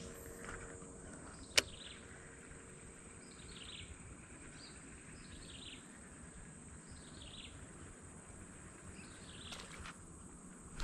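Natural outdoor ambience: a steady high insect drone with a bird repeating short falling chirps about every second, and one sharp click about one and a half seconds in.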